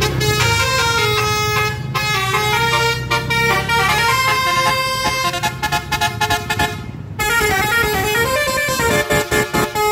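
Indonesian bus 'telolet' musical horn playing a tune of stepped notes that go up and down. It breaks off briefly about seven seconds in, then goes on in quick, choppy repeated notes.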